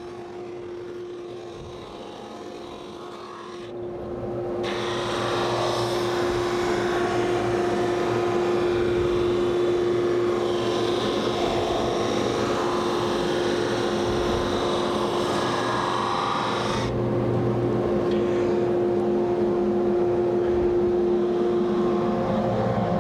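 A conveyor-fed drum sander runs with a steady hum. From about four seconds in it gets louder with a hissing sanding noise as a cabinet door is fed through, and the hiss drops back near seventeen seconds while the motor keeps running.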